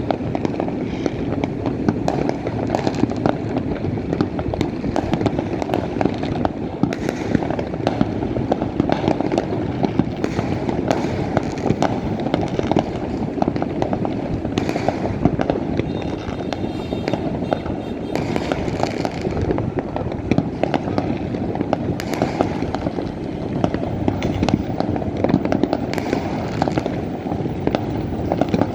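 Many fireworks going off at once: a dense, unbroken run of overlapping bangs and crackles.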